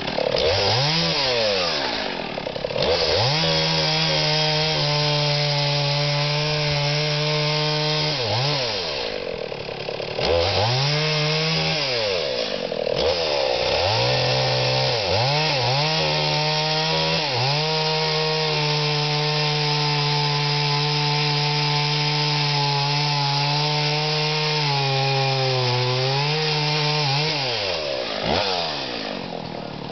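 Two-stroke chainsaw cutting into the base of a standing tree, revving up to full throttle and dropping back to idle several times in the first half, then holding a long steady cut. Near the end the engine note sags under load, picks up briefly, and falls away to idle.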